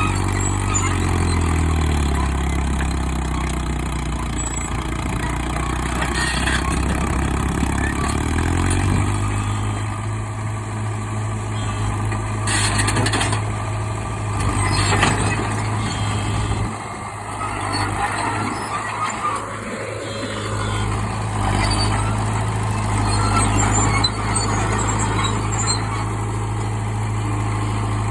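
Old bulldozer's engine running steadily. Its pitch sinks lower for several seconds early on and then picks back up, as it lugs under the load of pushing concrete. A couple of brief sharp knocks come near the middle.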